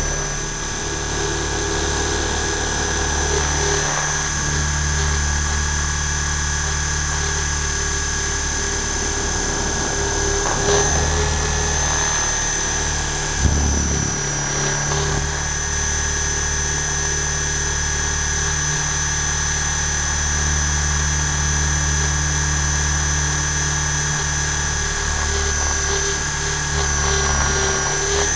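Align T-Rex 600 radio-controlled helicopter in flight, heard from a camera mounted on board: a steady high whine from the drive over the low beat of the rotor, the pitch dipping briefly a few times as it manoeuvres.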